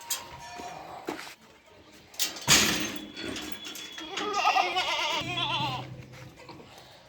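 Goats bleating, with one long quavering bleat about four seconds in. A loud, short noisy sound comes about two and a half seconds in.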